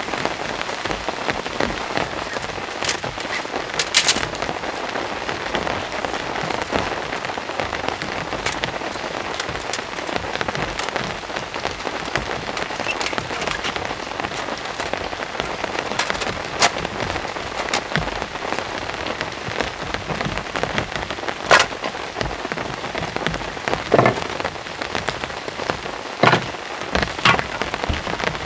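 Steady rain falling, with scattered louder single drops striking close by every few seconds.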